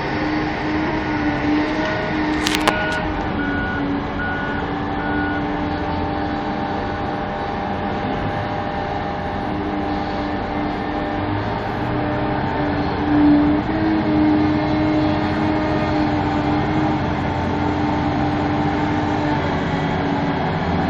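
Large diesel engines of a mining excavator and a haul truck running steadily, with a reversing alarm giving a row of short beeps during the first few seconds and a sharp click about two and a half seconds in.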